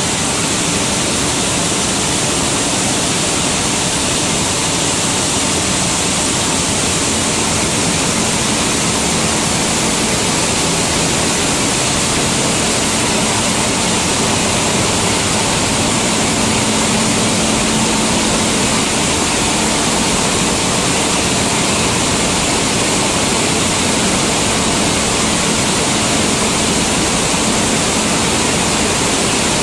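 Wheat flour milling line running: a steady, loud, even rush of machine noise, with a faint low hum.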